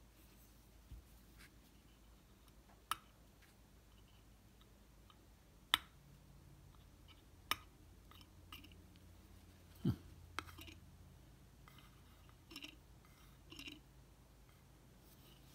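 Sparse, sharp little clicks and taps, about five spread over the stretch, from small hand tools and metal parts being worked while a vintage speedometer is taken apart, with a couple of soft rustles near the end.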